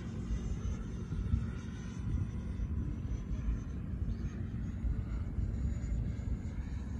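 Distant whine of an FMS F-16's 80mm electric ducted fan as the RC jet flies past high overhead. The whine is faint and drifts slowly in pitch over an uneven low rumble.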